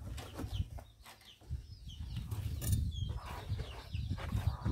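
Chickens in a coop: chicks peeping in many short, falling chirps over a low rumble, with a knock about halfway through.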